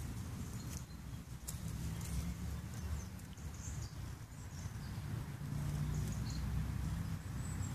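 Outdoor ambience: a steady low rumble on the microphone, a few sharp clicks and faint high bird chirps.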